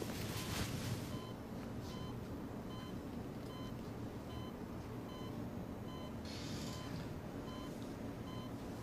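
Medical patient monitor beeping steadily with short, evenly spaced beeps over a low background hum. A brief soft rustle comes about six seconds in.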